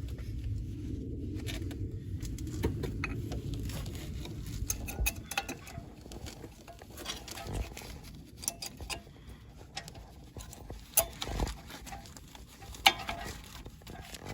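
Handling noise of a new brake pad being worked into the caliper bracket's spring clips on a 2012 Nissan Rogue front brake: rubbing and scraping for the first few seconds, then scattered light metal clicks and taps, with two sharper clicks near the end.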